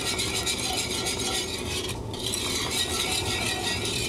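A metal wire whisk stirring hot, thin sauce in an enamelled cast-iron pot, scraping and clinking against the pot in quick strokes, several a second, with a brief pause about halfway. The sauce is being brought back to the boil on the stove to thicken.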